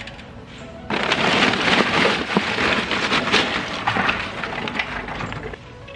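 Kingsford Match Light charcoal briquets poured from the bag, clattering and rattling onto the metal charcoal grate of a small charcoal grill. The pour starts suddenly about a second in and stops shortly before the end.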